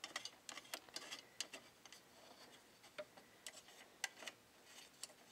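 Faint, irregular small clicks and ticks of a metal bias binder attachment being nudged into place and its thumb screws tightened on a serger's sewing arm.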